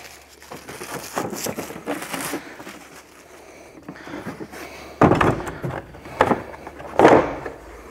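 Plastic shrink-wrap crinkling and tearing as it is stripped off a hard plastic tool case. This is followed by two loud knocks, about five and seven seconds in, as the blow-molded case is handled and set down on the bench.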